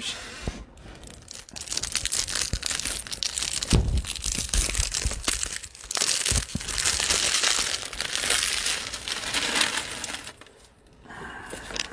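Plastic wrapper of a Panini Prizm basketball card hanger pack crinkling and tearing as it is opened, with a couple of short thumps about four and six seconds in.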